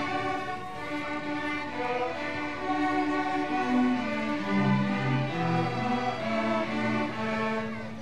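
Children's string orchestra of violins and cellos playing a piece together in sustained, bowed notes, with a long low note held near the end.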